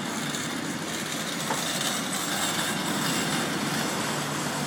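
Steam-hauled train departing, with a steady rolling noise from the train on the rails.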